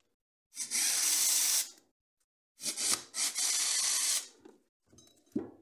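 Corded electric screwdriver run twice, each time for about a second and a half, working on the screws of an airsoft gun's version 3 gearbox.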